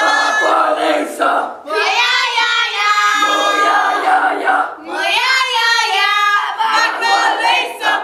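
Girls singing loudly together in high, strained voices close to shouting, in long held phrases broken by two short pauses.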